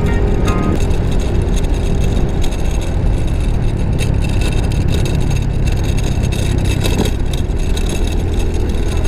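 Yamaha Mio i 125 scooter's single-cylinder engine running at a steady cruise, under a loud, constant low rumble of wind and road noise.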